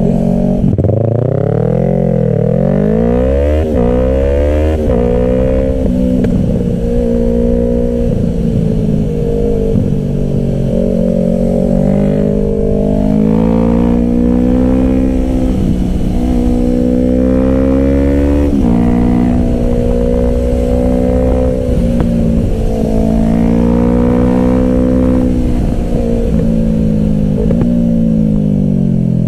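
Motorcycle engine pulling hard through the gears while riding, its pitch climbing and then dropping back at each gear change, several times over.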